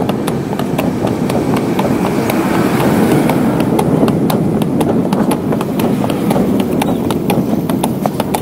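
A horse's hooves clip-clopping on a paved street as it pulls a cart, a quick, even run of sharp clicks over a steady rumble of the ride.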